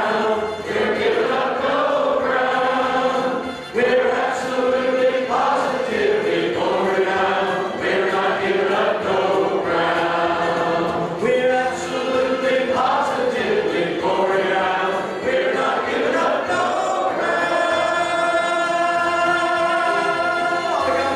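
A congregation singing a song together, with a man's voice leading through the microphone.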